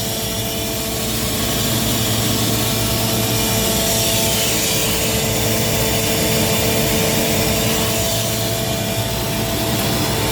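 Gardner Denver screw air compressor running steadily: an even hum and whine with a constant rush of air, and no knocking.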